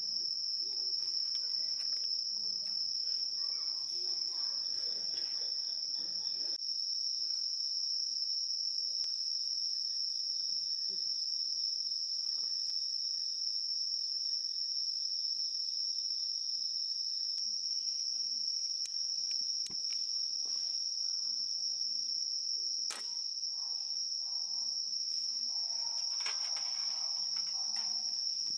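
Insects trilling in one steady, unbroken high-pitched tone. Beneath it come faint rustles and a single sharp click about two-thirds of the way through.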